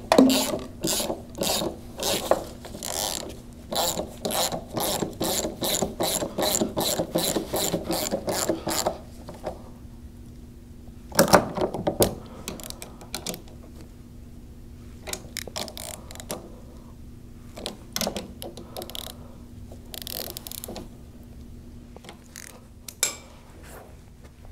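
Hand ratchet wrench clicking in quick back-and-forth strokes as bolts on a sprayer's displacement pump are tightened down; the ratcheting stops after about nine seconds, followed by scattered clicks and a sharp knock about eleven seconds in.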